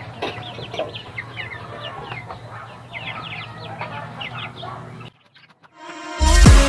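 Chickens clucking and calling in many short, quick notes over a steady low hum. The sound cuts out about five seconds in, and loud music starts near the end.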